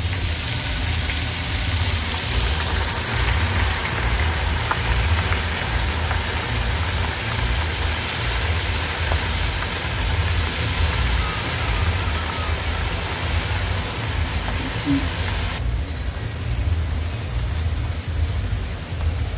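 Seafood and conch fritters sizzling in the bubbling oil of an electric deep fryer: a steady frying hiss over a low, uneven rumble. The hiss turns duller near the end.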